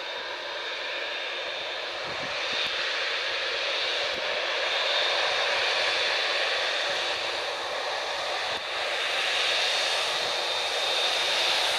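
Boeing 787-8's Rolls-Royce Trent 1000 jet engines running at taxi power as the airliner taxis: a steady rushing hiss with a thin high whine, growing louder about two seconds in.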